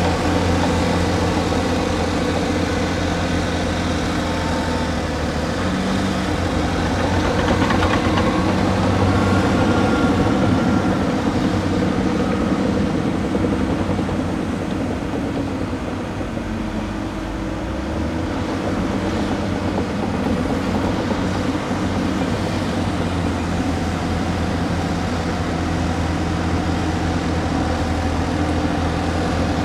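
Heavy excavator diesel engines running steadily under working load. The engine note swells slightly partway through, and a faint whine rises and falls in the middle.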